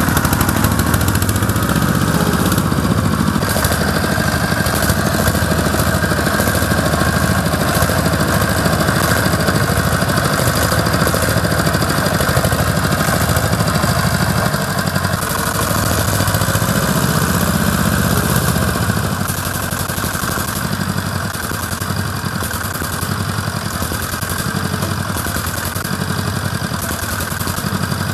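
Quad bike engine running steadily, becoming a little quieter about two-thirds of the way through.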